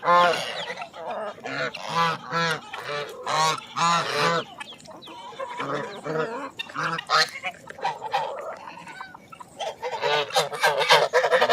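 Domestic geese honking repeatedly, many short calls following and overlapping one another; the calling thins out in the middle and picks up again near the end.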